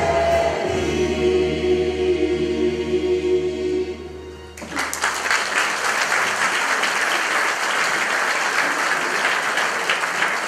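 A mixed choir holds its final chord, which fades away, and a little under halfway through the audience starts applauding suddenly and keeps on clapping.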